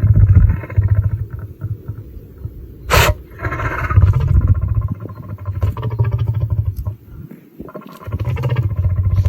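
Lion sneezing: one sharp, explosive burst about three seconds in, amid long stretches of the lion's low, pulsing grunting rumbles.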